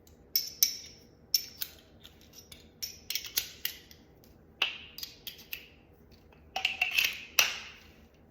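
Irregular sharp metallic clicks and clinks, a dozen or so, of a hand screwdriver and a 5/16 driver bit being fitted together and worked on a screw; the loudest few come near the end.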